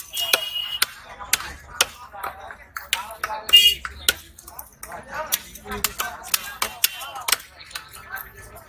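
A large knife scraping the scales off a big rohu on a wooden chopping block: a quick, irregular run of sharp clicks and scrapes as the blade rasps against the scales. One brighter clink comes about three and a half seconds in.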